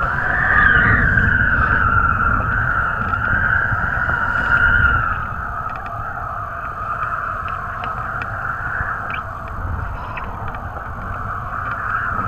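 Wind rushing over a camera microphone while kiteboarding, with a low rumble and a steady, wavering whine running through it; louder for the first five seconds, then a little quieter.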